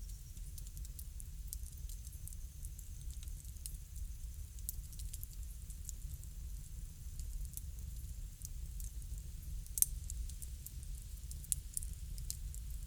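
Wood bonfire crackling: irregular sharp pops and snaps, one louder pop about ten seconds in, over a low steady rumble.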